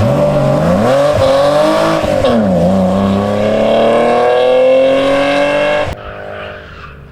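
Rally car engine under hard throttle, its pitch climbing, dipping briefly and climbing again as it revs. The sound cuts off abruptly about six seconds in, leaving a much quieter background.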